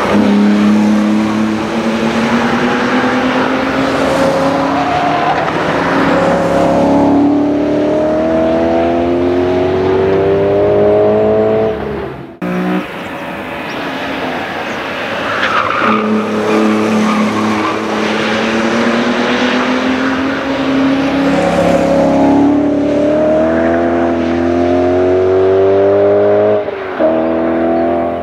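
BMW E46 M3's straight-six engine and aftermarket exhaust under hard acceleration, the engine note climbing steadily with the revs. There are two such runs, the first cut off abruptly about twelve seconds in.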